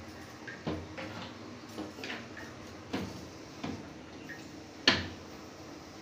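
A few sharp knocks and clicks, spaced irregularly, from a hand and phone knocking against a window's iron grille; the loudest comes about five seconds in.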